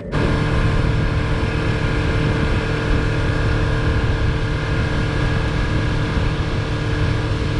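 Outboard motor of a small fishing boat running steadily at speed across the water. A constant engine note sits over a loud rushing noise.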